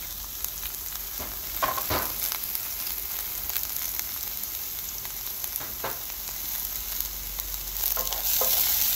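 Diced onion and red pepper sizzling in a hot cast-iron pan, a steady hiss with a few knocks. Near the end a wooden spatula stirs and scrapes through the pan and the sound gets louder.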